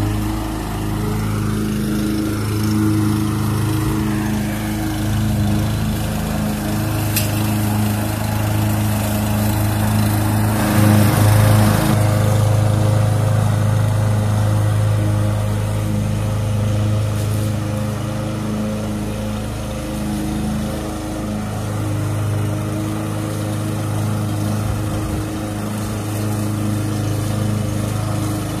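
Troy-Bilt TB200 walk-behind lawn mower running steadily while cutting grass, with a brief louder surge about eleven seconds in.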